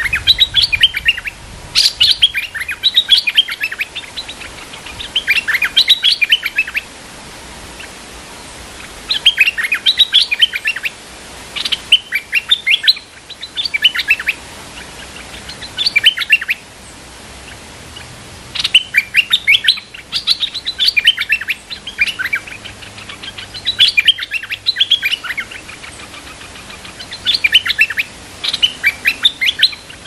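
Stripe-throated bulbuls (nok dok taeng) singing: bouts of quick, bubbly chirping phrases, each a second or two long, coming again every few seconds. The song comes from a caged decoy set out to draw wild bulbuls.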